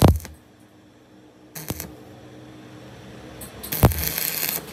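Arc welding with a stick electrode on a brake caliper slide pin: short sharp crackles as the arc strikes at the start and about two seconds in, then a longer stretch of crackling and spitting near the end. The weld is building up the undersized worn pin so it can be turned back to size.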